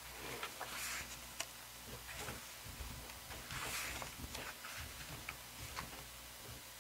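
Photobook pages being turned and handled by hand: soft paper swishes, the strongest about a second in and just before four seconds, with scattered small taps and clicks.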